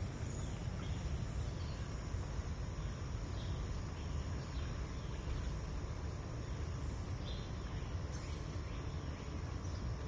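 Shallow forest stream flowing, a steady rush of water, with a few short high chirps scattered through it.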